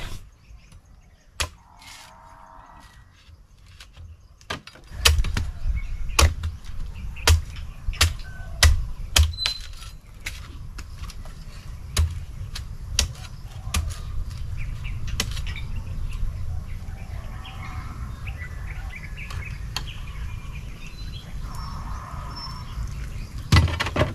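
Knife chopping into the husk of a young coconut: a run of sharp hacking strikes, about one every half second to second, starting about five seconds in and thinning out after about ten seconds, with one more strike near the end. Birds chirp faintly.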